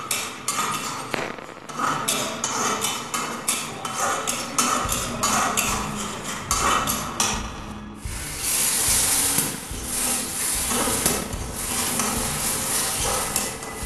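Spatula scraping and knocking against a steel kadhai in quick repeated strokes, stirring onion-garlic paste frying in hot oil. About eight seconds in, a louder sizzle comes in under the stirring.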